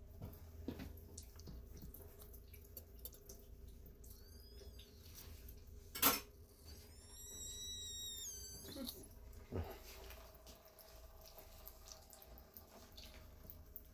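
Newborn American Bully puppies squealing faintly: a short, high, thin cry about four seconds in and a longer wavering one around seven to nine seconds in. A sharp click near six seconds and a low steady hum sit under them.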